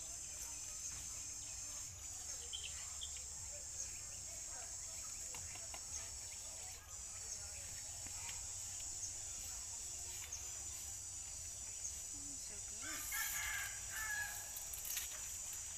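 Steady high-pitched drone of insects in the countryside. A rooster crows once, about thirteen seconds in, the loudest sound here.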